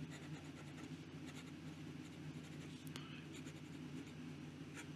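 Faint scratching of a steel Zebra G flex nib, fitted in a Jinhao 159 fountain pen, dragging across paper in slow pen strokes.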